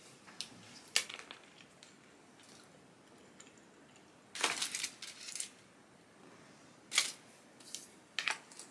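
Small handling noises from a chocolate egg and its plastic toy capsule: a sharp click about a second in, a short burst of crackling midway, another sharp click a little later and a couple of light ticks near the end, with quiet room tone in between.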